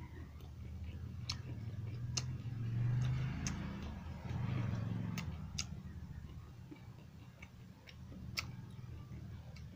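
Close-up eating sounds of a man eating rice and curry with his hand: scattered sharp clicks and smacks, roughly a second or so apart, over a low steady hum that swells twice, about three and four and a half seconds in.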